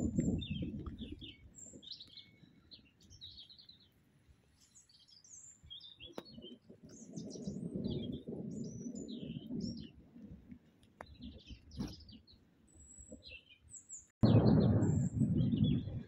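Small birds chirping and calling over and over, with waves of low rumbling underneath. Near the end a loud low rumble cuts in suddenly.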